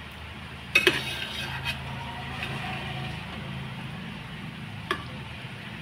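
A metal spoon stirring and turning cooked biryani rice in a pot, with soft scraping throughout. It strikes the pot with a couple of sharp clanks about a second in and once more near the end.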